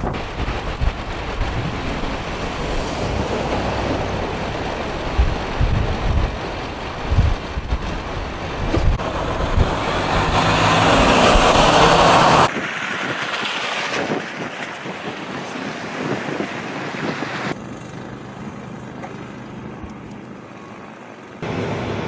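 Blizzard wind blowing hard across the microphone: a steady rushing hiss with gusty low thumps, swelling loudest about ten seconds in, then cutting abruptly to quieter, steadier wind noise twice.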